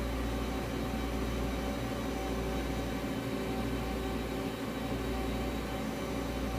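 Steady machine hum: a low drone with a few constant tones over an even hiss, unchanging throughout.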